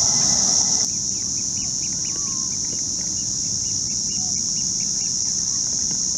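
Outdoor ambience: a steady high-pitched drone with faint, short bird chirps. A lower rushing noise cuts off suddenly about a second in.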